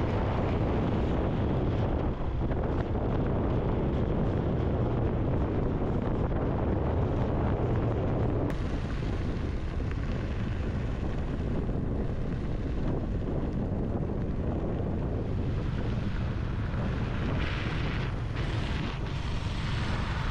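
Steady low rumble of a moving vehicle with wind buffeting the microphone; the sound changes abruptly about eight and a half seconds in.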